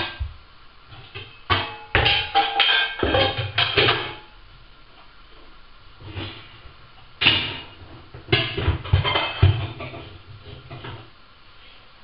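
Kitchen items clattering and knocking as they are moved about in a low kitchen cabinet, in clusters about two to four seconds in and again about seven to nine seconds in, over background music.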